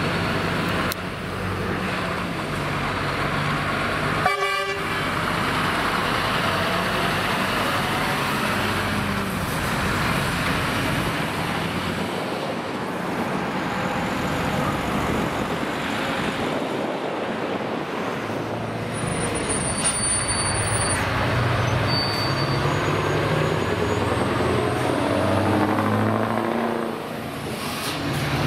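Scania semi-truck diesel engines with open exhaust pipes pulling away one after another, the engine note stepping up and down as they shift through the gears. A short horn toot comes about four seconds in.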